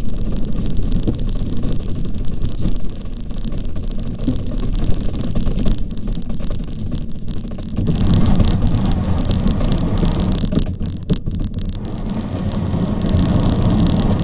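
Bobsleigh running at speed down an ice track: a loud, steady rumble and scrape of the runners on the ice, with a cluster of sharp knocks and rattles about three-quarters of the way through.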